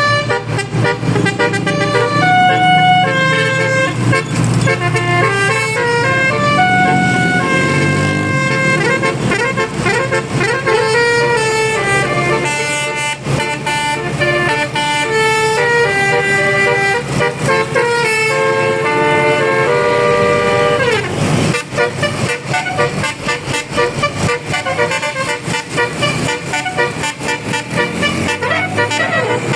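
Bus musical air horn (basuri/telolet) playing a tune of stepped notes for about twenty seconds, closing with a falling glide. After that the sound turns rougher and choppier, with horn notes still sounding.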